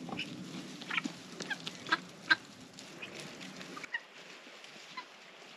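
Guinea fowl calling: a string of short, clucking calls, the loudest a little past two seconds in, thinning to a few faint calls after about four seconds.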